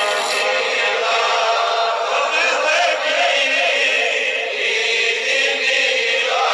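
A man singing a Kashmiri naat, a devotional chant, in long wavering phrases.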